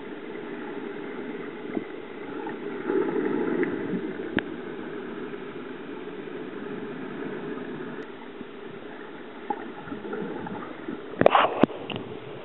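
Swimming pool heard underwater: a steady, muffled churning of water from swimmers doing front crawl, swelling about three seconds in, with a few sharp clicks about eleven seconds in as a swimmer passes close.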